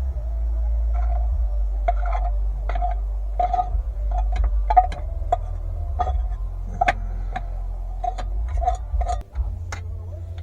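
Metal spoon knocking and scraping against a cooking pot or bowl while the cooked rice and meat are stirred and served: a run of irregular light clinks, each with a short ring. A steady low hum runs underneath.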